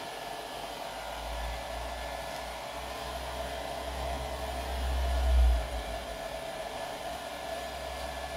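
Handheld hair dryer running steadily, blowing air onto a tin can to dry its coat of polyurethane lacquer. A low rumble swells and peaks about five and a half seconds in, then drops back.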